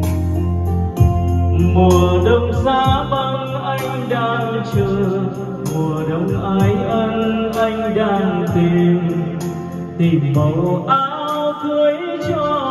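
A Vietnamese karaoke ballad playing through large Pioneer CS99 floor-standing speakers: a voice singing over backing music with sustained bass notes.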